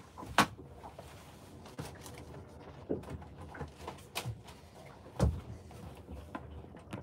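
Scattered knocks and bumps of a person moving about in a small boat cabin and handling things, with a sharp knock about half a second in and a heavier thump about five seconds in.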